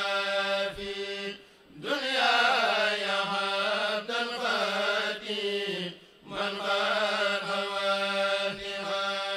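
A Mouride kourel, a group of men, chanting a xassida (devotional Wolof/Arabic religious poem) into microphones, with long held notes, pausing briefly twice.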